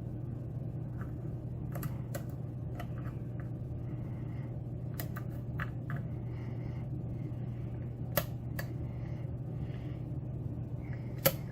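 Small, sharp, irregular clicks of a lock pick and tension wrench working the pins inside a pin-tumbler lock cylinder, with two louder clicks near the end, over a steady low hum.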